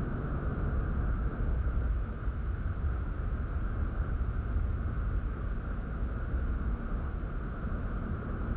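Steady rumble and rush of a towboat running at speed, with spray hissing and wind buffeting the microphone.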